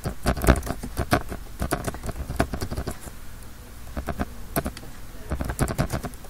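Typing on a computer keyboard: quick, irregular runs of key clicks, with a pause of about a second near the middle.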